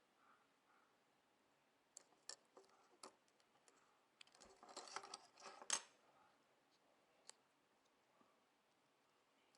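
Small parts being handled during a key-fob repair: a few light clicks, then about a second and a half of scraping and rustling that ends in a sharp click, and one more click near the end.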